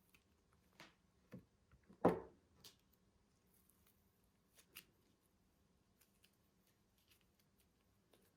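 Slime being handled and mixed: a few scattered sticky squelches and clicks, the loudest and longest one about two seconds in, then mostly quiet apart from small ticks.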